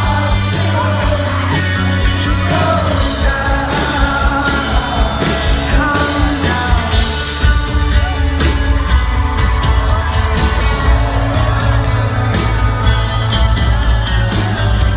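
Live rock band playing a song at a concert, with a lead vocal over guitars, bass and drums. About halfway through, the drums and bass come in heavier and the singing drops back.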